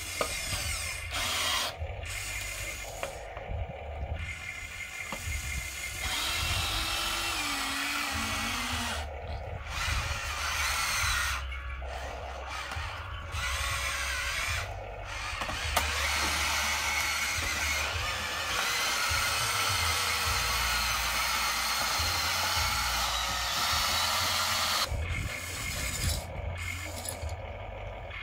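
Electric motors and gears of a Huina radio-controlled excavator whirring in stretches as the boom, arm and bucket move, broken by several short pauses between moves.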